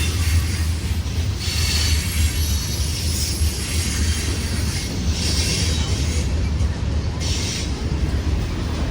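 A train rolling past with a steady low rumble, and three or four brief high squeals of wheels on the rails.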